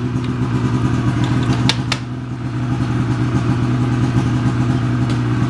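A machine motor running steadily with a low, even drone, and two sharp clicks close together about two seconds in.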